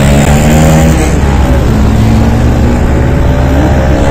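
A motor vehicle engine runs on the move over a heavy low rumble. Its pitch drops about a second in and climbs again near the end.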